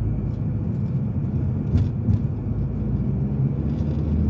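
Steady low engine and road rumble heard inside a moving car.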